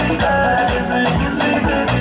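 Upbeat dance music with a steady beat, a strong bass line and shaker-like percussion, played loud.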